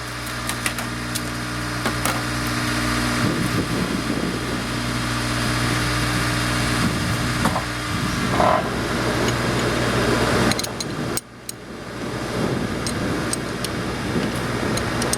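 Craftsman angle grinder cutting through a Pirelli tire on a Maserati wheel, a rough grinding noise that builds from about three seconds in, stops sharply near the eleven-second mark and starts again. Under it runs the steady engine hum of a truck pumping out a septic tank.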